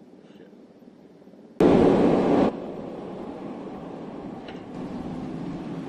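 Fire engine driving past: a sudden loud blast of noise about a second and a half in, settling into the steady rumble of the passing truck.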